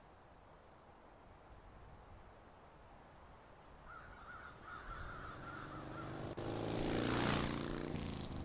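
Intro sound design: faint outdoor ambience with a short run of bird calls about four seconds in, then a swelling whoosh over a low hum that is loudest shortly before the end.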